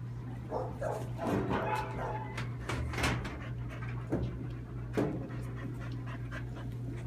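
A dog panting and whining with excitement as it jumps for a toy ball, with a few sharp knocks in between.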